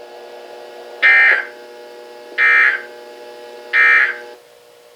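Emergency Alert System SAME data tones: three short bursts of the end-of-message code, each well under half a second and about 1.3 s apart, signalling that the alert broadcast is over. A steady background hum runs under them and cuts out near the end.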